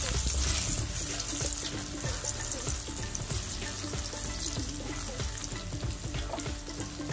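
Sliced onions with curry leaves, dried chilies and cumin sizzling steadily in hot oil in a nonstick wok while a wooden spatula stirs them, the onions frying on their way to caramelizing.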